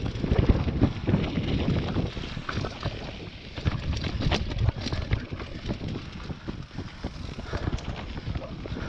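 Mountain bike descending a dry dirt trail: wind rushing over the microphone, tyres rolling over dirt and rock, and frequent sharp clicks and knocks from the bike's chain and frame over bumps. It is louder and rougher for the first few seconds.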